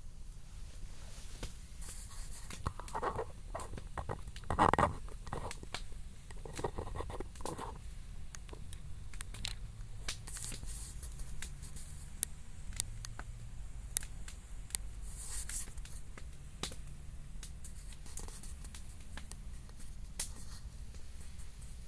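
Campfire crackling: scattered small pops and ticks, with a few louder rustling sounds around five seconds in.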